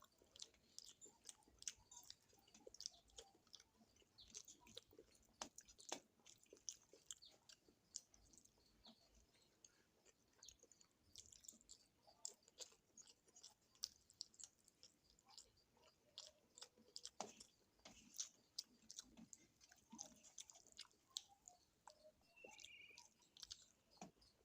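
Close-miked chewing of rice and curry: a steady run of quiet wet mouth smacks and small clicks, several to the second.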